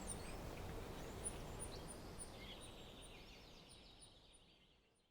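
Outdoor ambience: a low steady rumble of background noise with birds chirping, one giving short high chirps a few times a second while another warbles more softly. It all fades out to silence near the end.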